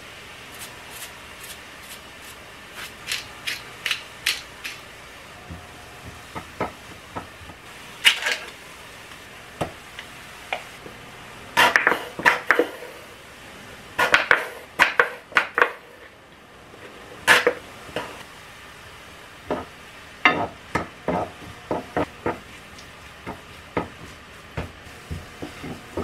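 Wooden spatula knocking and scraping against a frying pan while stir-frying a crumbled tofu and vegetable mixture: irregular clicks and taps, some in quick clusters.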